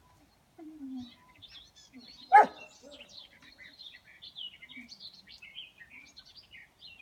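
Small birds chirping steadily in the background, with one short, sharp puppy yelp about two and a half seconds in.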